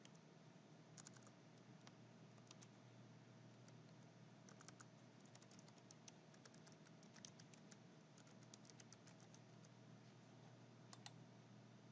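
Faint computer keyboard typing: scattered key clicks, some in quick runs, over a low steady hum.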